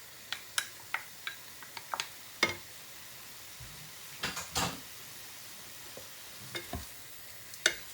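Stir-fry being stirred in a pan: a utensil scraping and knocking against the pan in irregular sharp clacks, the loudest about two and a half and four and a half seconds in, over a faint steady sizzle of frying food.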